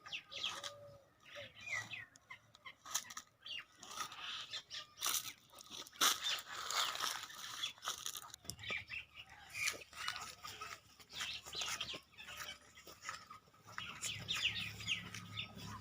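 Birds chirping in short, scattered calls, mixed with intermittent crunches and clicks.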